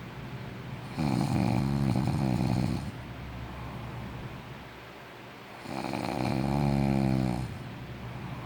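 A sleeping person snoring: two long, pitched snores of nearly two seconds each, about five seconds apart, with softer breathing between them.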